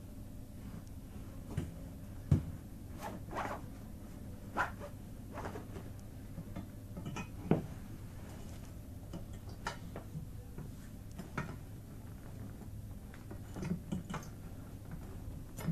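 Scattered knocks, clicks and rustles of a heavy-duty canvas dog cot being handled and put together, with two sharper knocks about two and a half and seven and a half seconds in.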